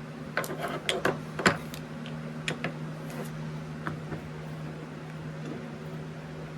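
Light clicks and rustles of small items being handled on a workbench, bunched in the first two seconds and then scattered, over a steady low electrical hum.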